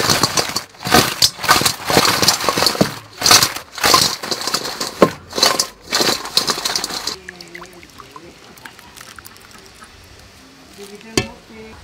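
Loud, dense crackling and rustling of crispy fried chicken drumsticks being handled in a bowl. It stops abruptly about seven seconds in. A single sharp click follows near the end.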